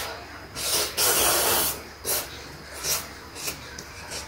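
A person slurping instant cup noodles: a long hissing slurp about a second in, followed by a few shorter slurps.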